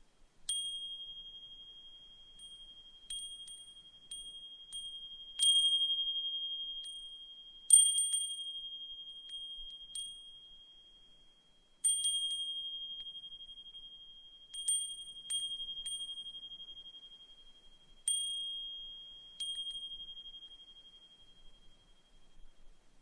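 Brass suzumushi furin, a Japanese wind chime, struck by its clapper at irregular moments every one to three seconds. Each strike rings the same single high note, with a fainter higher overtone, that fades away slowly.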